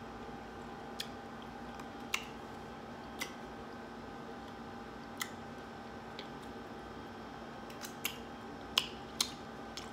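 Close-miked mouth sounds of a person chewing smoked turkey sausage: scattered sharp lip smacks and clicks, several close together near the end, over a faint steady hum.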